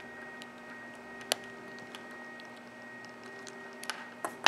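A sharp click about a second in and a few fainter ticks near the end, from a steel spring bar tool and a watch spring bar against the plastic case lug of a G-Shock as the bar is fitted. A steady electrical hum runs underneath.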